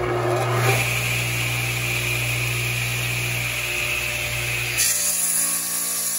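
Radial arm saw running and cutting through an old-growth pine stair tread, with a steady motor hum under the hiss of the blade in the wood. About five seconds in the sound changes: the low hum drops and the high hiss grows.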